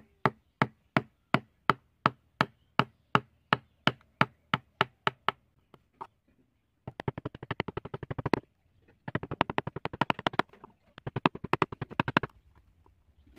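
Knocks of a mallet on a wood-carving chisel as it cuts into a wooden board: steady blows about three a second, then after a short pause, three runs of quick light taps.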